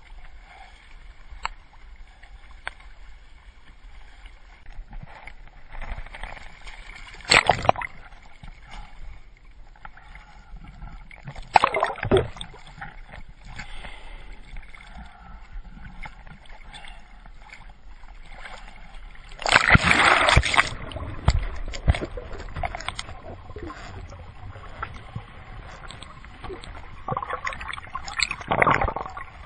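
Seawater sloshing and splashing against a kayak and a camera held just above the surface, with several loud rushes of water, the longest lasting over a second about twenty seconds in. Near the end the camera dips under and the water gurgles.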